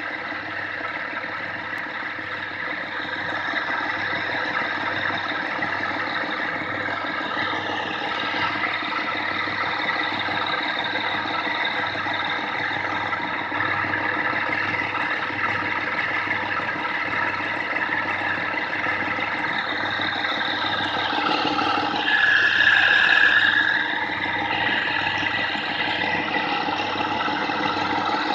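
Wood lathe running while a hand-held turning chisel cuts a spinning wooden cylinder: a steady mechanical drone mixed with the rasp of the tool on the wood. About 22 seconds in it grows louder for a second or two, with a higher-pitched squeal.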